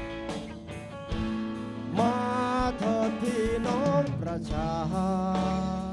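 Live band playing a Thai folk-style song: strummed acoustic guitars with a gliding melody line coming in about two seconds in and ending on a held note.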